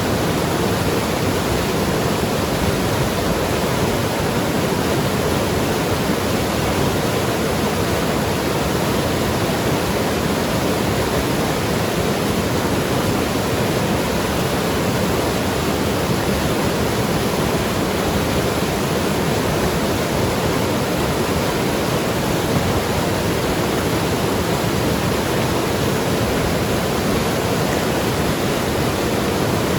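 Mountain river flowing and rushing over rocks, a steady, unbroken wash of water sound.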